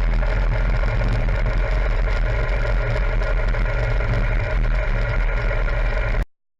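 BMW R1200GS boxer twin motorcycle engine running steadily, then stopping abruptly near the end.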